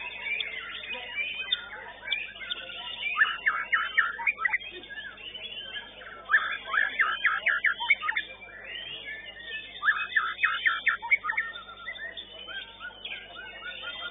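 Several white-rumped shamas (murai batu) singing at once, a dense tangle of whistles and chirps. Three runs of rapid clipped notes stand out about three, six and ten seconds in.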